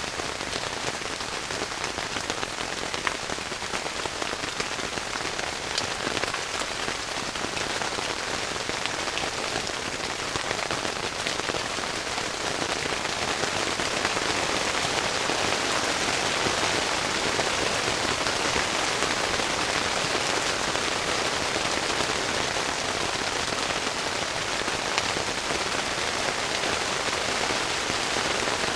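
Heavy rain falling steadily on a yurt-style tent, growing a little louder about halfway through.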